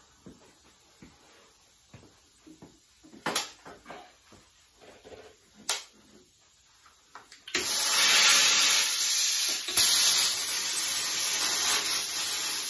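Plasma cutter torch cutting metal: a few light knocks of handling, then about seven and a half seconds in a loud steady hiss of compressed air and plasma arc starts, with a brief break near the ten-second mark. It is a cheap non-pilot-arc unit, set to 20 amps and fed air at 50 PSI, cutting through the metal easily.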